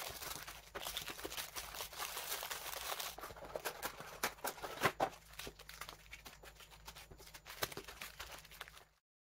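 Plastic wrappers and packaging crinkling and rustling as they are handled, with many light clicks and taps. The sound cuts off abruptly near the end.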